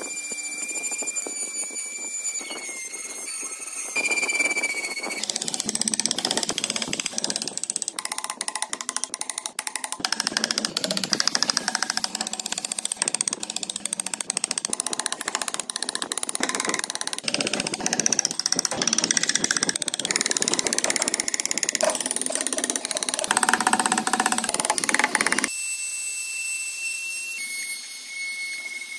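Wood carving work. A high-speed rotary tool with a burr whines steadily as it cuts into the wood, then a hand gouge scrapes and cuts for a long stretch. Near the end a trim router starts with a steady high whine.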